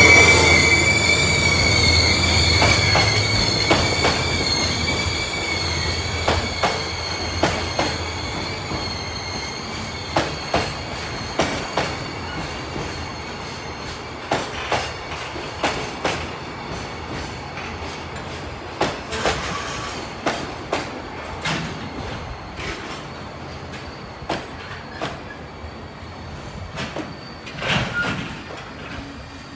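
Empty container flat wagons of a freight train rolling past under braking: a high brake squeal that fades over the first several seconds, then wheel clicks over rail joints that come further apart as the train slows to a halt. A louder scrape-like noise comes shortly before the end.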